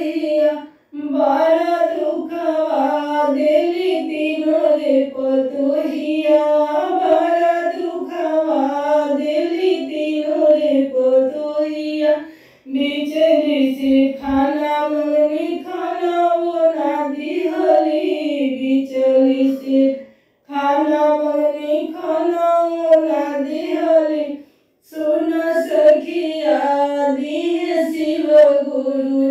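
A woman singing a Bhojpuri Shiv charcha bhajan, a devotional folk song to Shiva, solo in a high voice. She sings in sustained, wavering phrases with brief pauses for breath between the lines.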